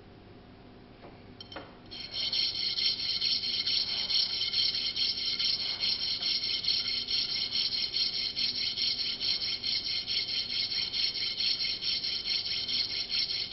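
A metal crush washer being rubbed back and forth across a flat metal file, a rapid, even rasping. It is being filed down to time the flash hider's rotation. The rasping starts about two seconds in, after a couple of light clicks.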